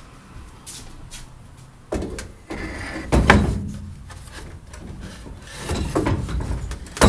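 Wooden boards being handled: a few dull knocks about two and three seconds in, scraping and rubbing of wood in between, and a sharp knock near the end.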